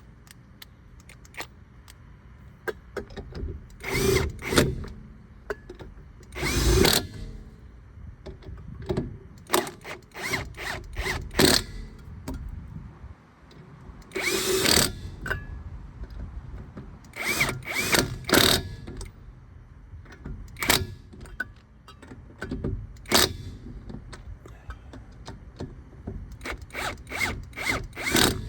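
Impact wrench running lug nuts down onto the camper wheel's studs in many short bursts, with a few longer runs between pauses.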